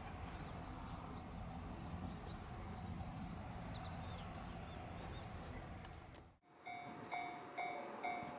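A low, steady outdoor rumble with faint bird chirps, then, after a cut, a Japanese railway level-crossing bell starts ringing in even, clanging strokes about two a second, warning of an approaching train.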